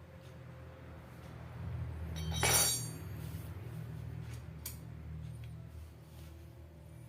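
A sharp clink of hard parts knocking together, ringing briefly, about two and a half seconds in, with a few lighter clicks around it over a low steady hum.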